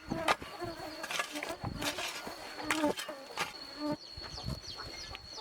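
Insects buzzing, a low buzz coming and going over a steady high-pitched tone, with sharp knocks about once a second.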